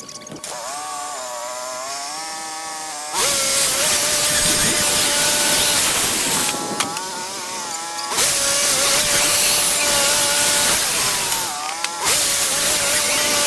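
Portable band sawmill running, its engine and blade cutting through a log. The sound steps up to a loud, steady run about three seconds in, eases off twice and comes back each time.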